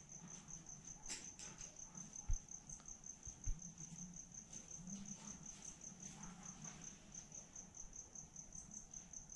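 A cricket chirping in a fast, even pulse that runs on without a break, faint. Two dull low thumps come a little over a second apart, about a quarter of the way in.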